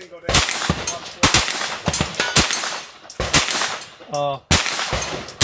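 Gunshots fired in slow succession, five shots about a second apart, each followed by a short echo.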